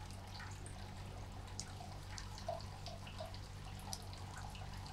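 Faint scattered ticks and clicks of a small screwdriver turning M2.5 screws into a 3D-printed hinge through an acrylic plate, over a low steady hum.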